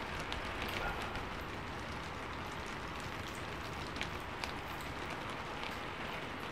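Heavy rain falling steadily, an even hiss, with a few faint clicks of a ladle in the soup pan.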